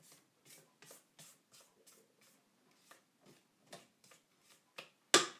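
Spatula scraping cupcake batter off a stand mixer's beater and against its stainless steel bowl: faint, quick scrapes and taps, about three a second, then a sharp, louder knock near the end.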